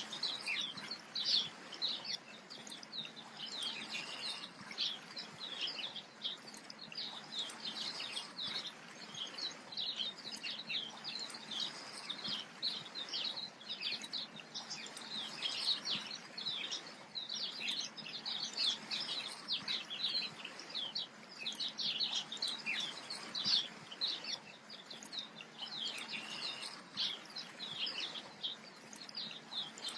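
Dense chorus of small birds chirping, a constant stream of short high chirps overlapping without pause.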